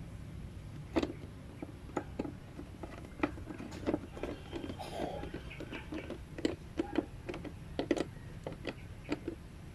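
Hand screwdriver driving a screw into the fog light mounting in the plastic bumper: irregular small clicks and scrapes of the tool, screw and plastic, over a steady low hum.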